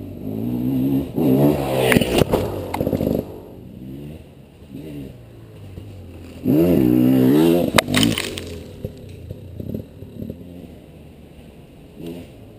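KTM 300 XC dirt bike's two-stroke single-cylinder engine revving in bursts as the rider works the throttle, loudest about a second in and again about six and a half seconds in, with a few sharp clacks among the revs.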